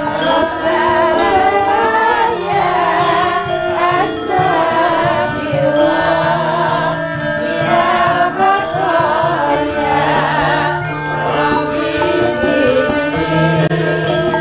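Javanese sinden, female singers, singing through microphones with gamelan accompaniment and a hand drum underneath.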